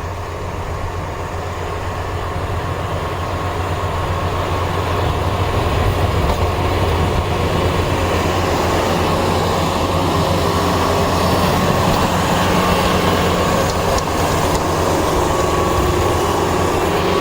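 A heavy vehicle running close by with a steady low engine hum, getting louder over the first five seconds and then holding steady.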